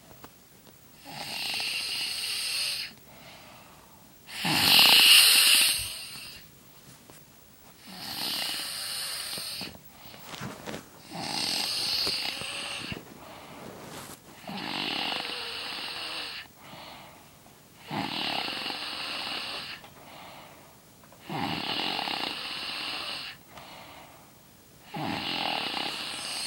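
A sleeping person snoring hard, with eight long snores coming evenly about every three and a half seconds and quieter breaths between them. The second snore, about five seconds in, is the loudest.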